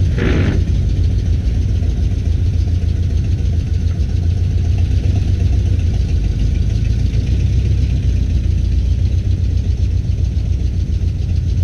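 1977 Ford F-150 pickup's engine running with a steady deep rumble as the truck drives slowly across the yard, with a short sharper burst of sound right at the start.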